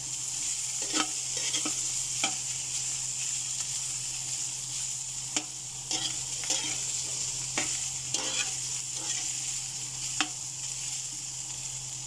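Diced boiled pork sizzling steadily in a hot wok, frying in the fat it is rendering out, while a metal spatula stirs it with irregular sharp clinks and scrapes against the pan.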